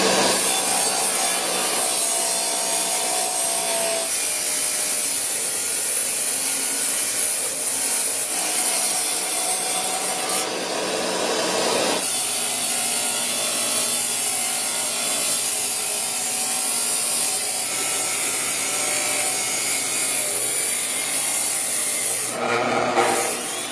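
Diamond saw blade cutting lengthwise through an iPhone 6S, a steady harsh grinding hiss that keeps on with only small changes in tone as the cut goes on.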